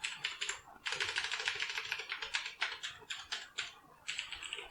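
Fast typing on a mechanical keyboard with Cherry MX Blue switches: a rapid run of sharp, crisp keystroke clicks, with a brief pause about a second in and another near the end.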